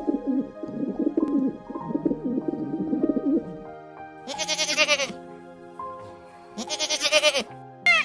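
Pigeons cooing for about three and a half seconds, then a goat bleating twice, over background music.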